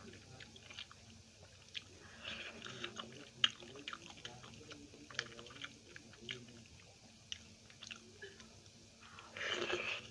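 Close-miked mouth sounds of a person eating kadhi with rice and chilli fritters: wet chewing with many small clicks and smacks, and a louder burst of noise near the end.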